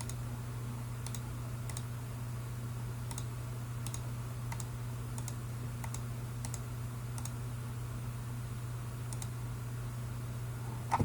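Light, irregular clicking of a computer mouse, a dozen or so clicks spread over several seconds, above a steady low hum.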